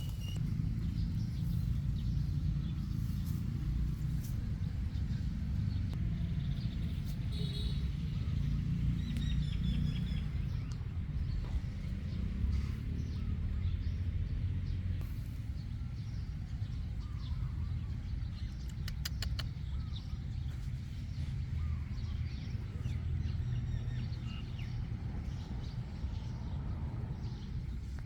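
Steady low rumble of outdoor background noise, with a few faint bird chirps in the first half and a short run of quick ticks a little over halfway through.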